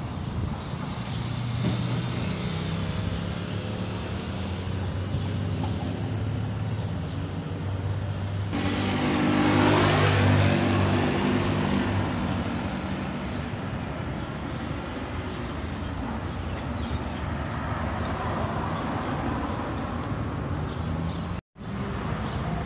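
Street traffic: a motor vehicle's engine passes close, swelling to its loudest about ten seconds in and then fading, over the steady hum of other traffic. The sound cuts out for a moment near the end.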